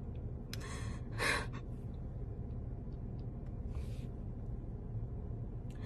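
A woman's breathing as she holds back tears: a sharp intake and a breath out about a second in, a softer breath near four seconds and another near the end, over a steady low hum.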